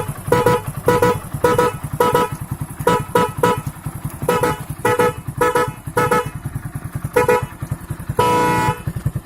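Motorcycle electric horn driven by a horn tuner, sounding in quick patterned groups of short beeps, then one longer wavering blast near the end. Underneath, the Hero Splendor's single-cylinder engine idles with a steady low pulse.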